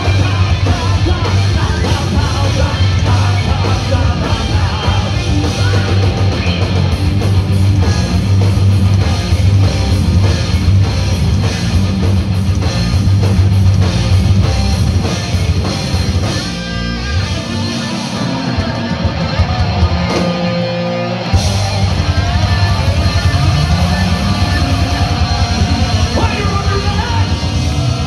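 A live heavy metal band plays loudly, with distorted electric guitars, bass and drums. About two-thirds of the way through, the drums and bass drop out for a few seconds, then the full band comes back in.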